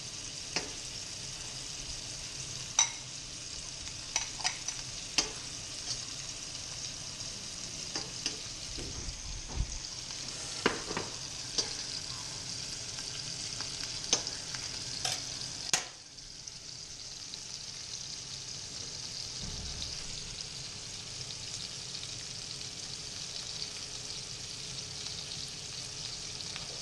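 Filet mignon steaks frying in butter and bacon fat in a pan, a steady sizzle. Over the first half, the knife used to add the butter clicks now and then against the pan and bowl. About sixteen seconds in, the sizzle dips suddenly, then carries on.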